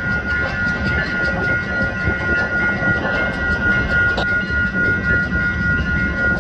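Union Pacific diesel locomotive rolling slowly, its engine rumbling low and steady, with a bell ringing in a regular rhythm throughout.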